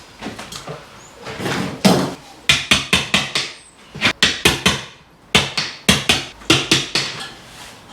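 Hammer blows in quick runs of about five or six strikes, with short pauses between the runs.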